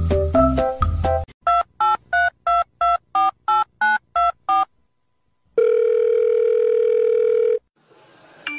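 Telephone keypad tones: a quick run of about ten short beeps at varying pitches, then one steady tone about two seconds long, like a dial or ringing tone. A few notes of music come just before the beeps.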